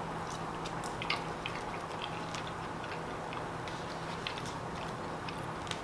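Person chewing a fried chicken sandwich: faint, irregular small clicks over a steady low background hum.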